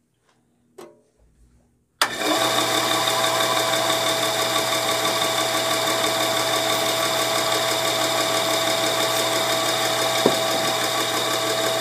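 Craftsman 10-inch direct-drive bandsaw starts up suddenly about two seconds in and runs steadily, a low motor hum under a high whine. Its guide bearing is a little noisy.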